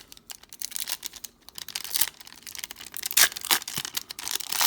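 A trading-card pack wrapper being torn open and crinkled by hand, in a quick irregular run of crackles and rustles.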